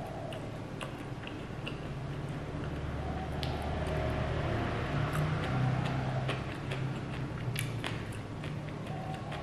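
Close-up eating sounds: chewing, with scattered light clicks of a metal spoon and fork against small ceramic bowls.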